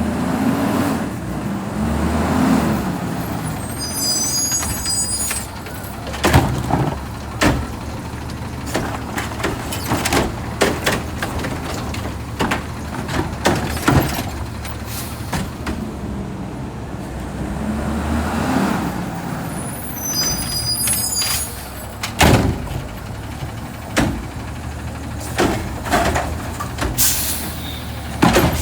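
McNeilus front-loader garbage truck on an Autocar ACX Xpeditor chassis working through two similar cycles. Each cycle has the engine revving up, high squeals, short air hisses and many metal clanks and bangs. The squeals come near 4 s and 20 s.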